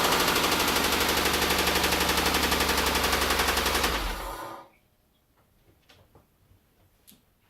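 Mitsubishi Eclipse GT's 3.0 V6 idling with a rapid, even knocking, the sign of a rod knock; it sounds horrible. The engine is switched off about four and a half seconds in and runs down to near silence, with a few faint clicks after.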